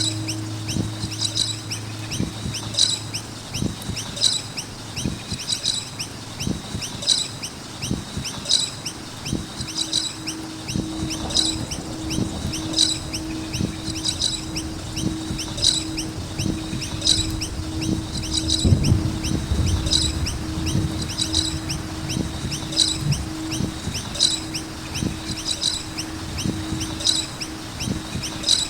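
Noisy miner birds giving short, high chirping calls, repeating at a regular pace of about one every second or so, over a steady low hum and rumble.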